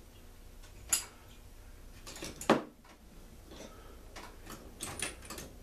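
Metal blower-engine parts and hand tools clinking and knocking on a workbench. There are scattered sharp clinks, the loudest about two and a half seconds in, and a quick run of them near the end.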